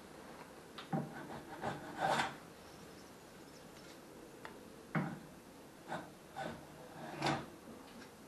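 Homemade wooden hand plane being worked on by hand while its blade is sharpened and set: about eight short, irregular scrapes and knocks of wood and metal, quiet gaps between them.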